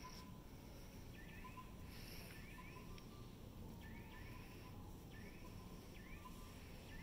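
Faint high chirps, each a short curved sweep, repeating about once a second over a low steady hum.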